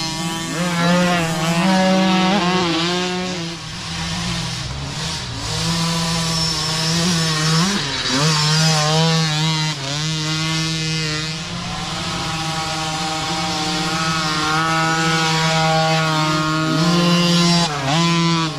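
Dirt bike engine running hard on a trail ride, its pitch rising and falling steadily with the throttle, with a few quick sharp revs about two and a half seconds in, near eight seconds, and near the end.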